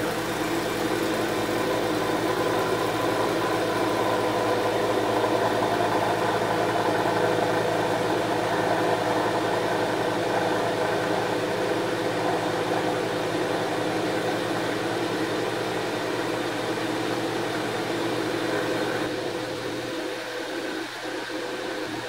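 An HVAC vacuum pump running steadily, evacuating a vacuum chamber as the pressure inside falls well below atmospheric. Its low hum drops away about nineteen seconds in, leaving a higher steady drone.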